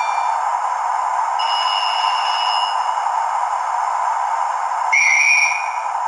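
A model train sound decoder plays through a small on-board speaker over a steady engine hum. A plain electronic tone lasts about a second and a half, and about five seconds in comes a short, slightly trilling blast of a guard's whistle.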